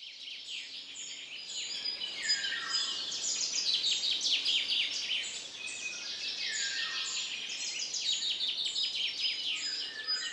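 Several songbirds singing together in woodland: a dense mix of high chirps and trills, with a song phrase that runs down in pitch about two seconds in and again about six seconds in.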